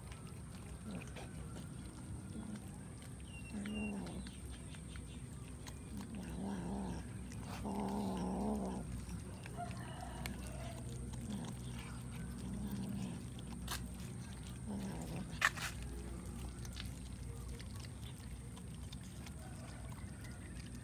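Cats growling low and wavering, in repeated short bouts, while eating raw fish, with faint wet chewing clicks; the longest, loudest growl comes about eight seconds in. A single sharp click sounds about fifteen seconds in.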